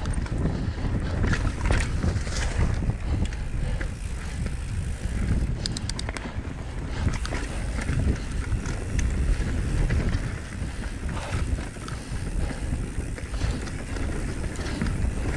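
Mountain bike rolling fast down dry dirt singletrack: knobby tyres rumbling over the ground, the bike rattling, and wind buffeting the microphone, with a quick run of sharp clicks about five and a half seconds in.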